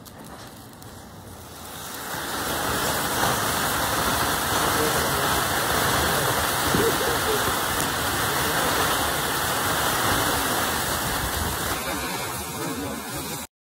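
Golden Peacock ground fountain firework spraying sparks: a steady rushing hiss that builds over the first two seconds, then cuts off abruptly near the end.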